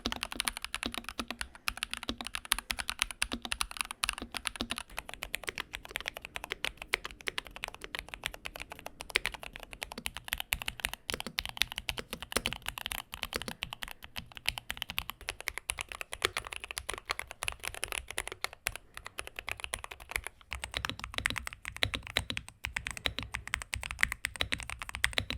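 Typing on five mechanical keyboards in turn, about five seconds each: a fast, continuous run of key clacks whose tone shifts each time the board changes.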